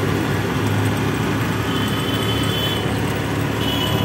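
Steady vehicle engine and traffic noise. A faint high tone sounds twice, about two seconds in and again near the end.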